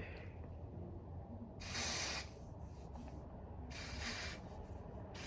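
Two short bursts from a hair-product spray, each about half a second of hiss, with a third starting near the end.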